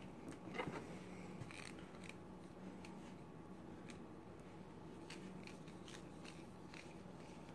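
Faint, scattered small clicks and crinkles of hands handling a synthetic feather wrap as it is pressed and rolled onto an arrow shaft, over a faint low steady hum.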